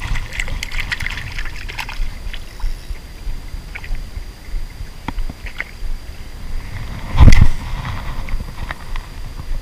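River water lapping and sloshing around an action camera held just above the surface, a steady low rumble with small scattered clicks. There is one loud thump about seven seconds in.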